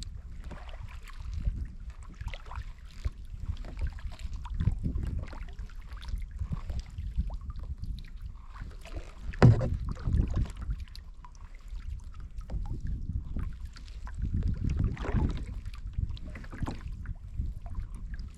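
Kayak paddling: repeated paddle strokes swishing and splashing in the water, over a low wind rumble on the microphone. A single sharp knock comes about halfway through.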